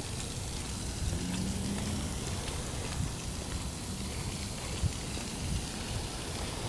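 Pop-up lawn sprinkler heads spraying, a steady rain-like hiss of water falling on grass and wet pavement, with a low rumble underneath.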